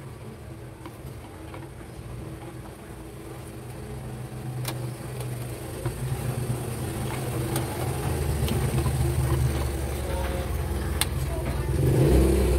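A low, steady engine-like rumble in the background, growing louder over the second half, with a few sharp plastic clicks as a standing fan's motor cover is fitted over its motor.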